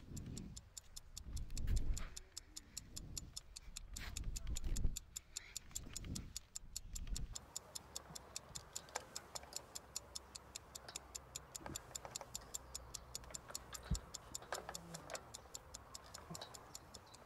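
A clock ticking fast and evenly, about four ticks a second. Deep, swelling whooshes rise and fall under it for the first seven seconds, then give way to a low steady hum.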